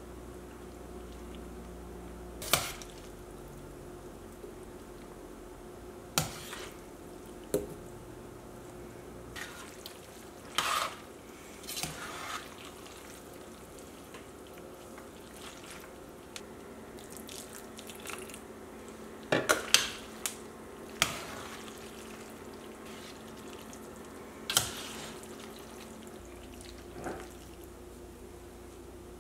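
Cooking sounds at a stainless steel skillet as fettuccine is tipped in and tossed through curry sauce: scattered sharp clinks and knocks of a utensil against the pan, several close together about two-thirds of the way in, over a steady low hum.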